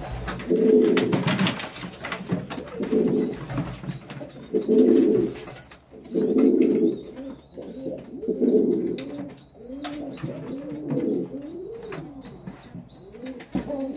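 Domestic pigeons cooing, a low rolling coo repeating every couple of seconds. Over the first few seconds there are knocks and rustling of hands reaching into a nest box. Through the middle a thin high peep repeats about twice a second.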